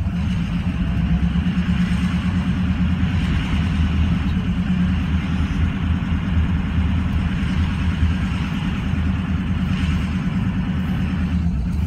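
Car driving, heard from inside the cabin: a steady low hum of engine and road noise.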